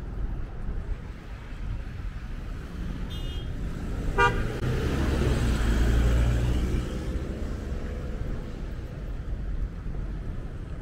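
City street traffic. A car horn gives one short toot about four seconds in, and then a car passes close by, its engine and tyre noise swelling and fading over about two seconds.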